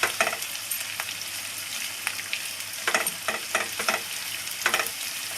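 Chopped onion, dried red chillies and curry leaves sizzling steadily in hot mustard oil in a kadai. A spatula stirs and scrapes the pan in several short strokes, most of them about three seconds in.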